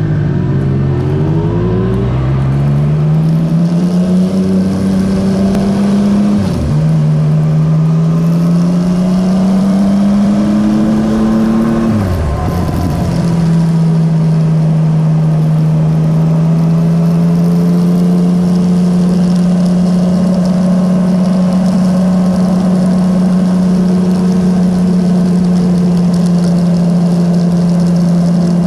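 Motorcycle engine accelerating away, its note rising in pitch and dropping at two gear changes about six and twelve seconds in, then holding a steady note at cruising speed.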